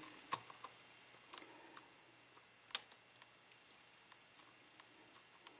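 Light, scattered metallic clicks of a lock pick and tension wrench working the pins of a five-pin CES Euro cylinder during single-pin picking, with one sharper click a little before the middle.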